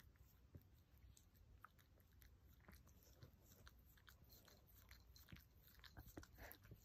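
Faint wet licking of a chocolate-and-tan Chihuahua's tongue on a man's chin and neck: small irregular clicks and smacks that come thicker near the end.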